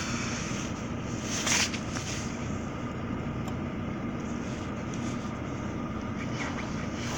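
Steady running noise of a car, with one short, louder knock or rustle about one and a half seconds in.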